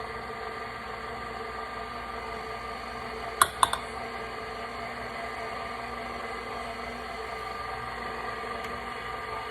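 Electric mixer running steadily at low speed with an even motor hum as flour is worked into cake batter. A couple of sharp clicks come about three and a half seconds in.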